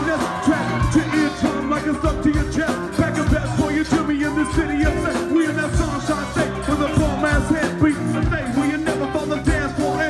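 Live band music with a man singing lead into a microphone over electric guitar and drums.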